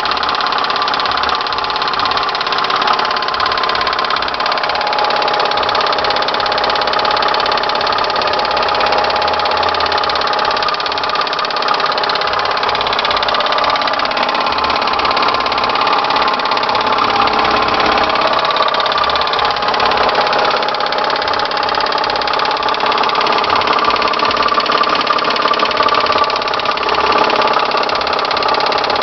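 1999 Honda Accord's V6 engine running steadily with a continuous knocking or clicking noise, whose source the owner does not know; the engine otherwise runs smoothly.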